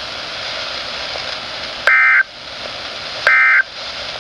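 NOAA Weather Radio SAME end-of-message data bursts: two short, buzzy digital warbles, each about a third of a second, roughly a second and a half apart, over steady radio static. They signal the end of the broadcast test message.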